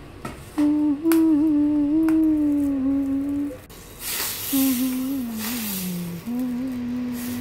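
A slow hummed melody playing as background music, long held notes with small bends and one glide downward about two-thirds of the way in. Two short bursts of hiss cut in around the middle.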